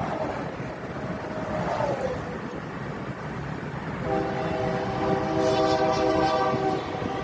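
Locomotive air horn sounding a chord of several notes over road noise inside a moving car: a blast that trails off with a falling pitch in the first two seconds, then a long blast starting about four seconds in.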